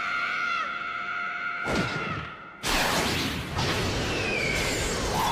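A boy's long, drawn-out scream of "Dad!" held on one pitch, ending about a second and a half in. A whoosh follows, then a loud, dense rush of crashing anime battle sound effects.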